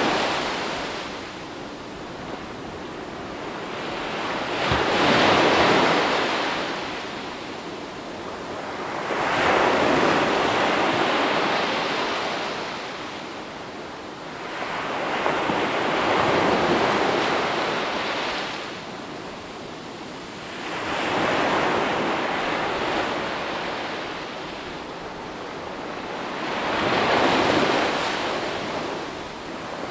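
Ocean waves washing in on a shore, each wave swelling to a rush and falling away about every five to six seconds.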